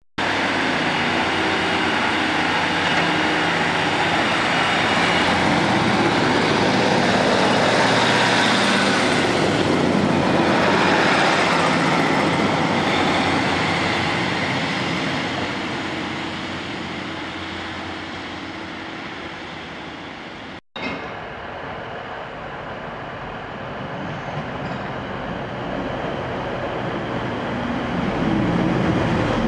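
Diesel multiple-unit trains at a station platform. A Class 150 Sprinter's diesel engines run with a steady hum and rumble, loudest about a third of the way in and then fading as it pulls away. After a sudden cut, a Class 185 diesel unit approaches, growing louder near the end.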